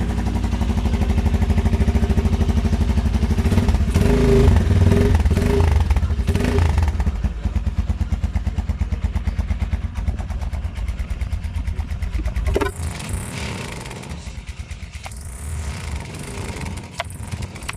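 Rusi Gamma SS200 motorcycle engine with its stock exhaust running at idle, with a few short swells in revs in the first half. About two-thirds through there is a sharp click, after which the engine sound is quieter and thinner.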